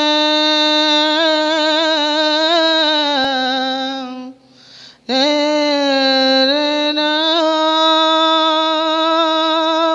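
A woman singing a devotional qawwali without accompaniment, holding long wordless notes that waver slightly in pitch. She breaks off about four seconds in, then holds a second long note.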